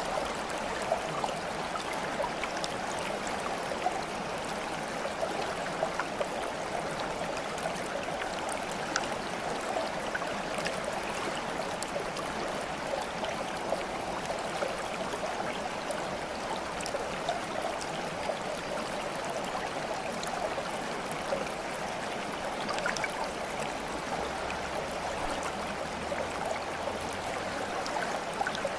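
Steady flowing, gurgling water like a small stream, with small drips and splashes sprinkled through it.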